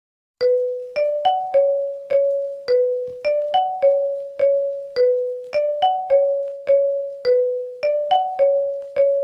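Marimba-style ringtone melody: a solo line of single mallet-struck notes, about two a second, repeating a short phrase, starting about half a second in.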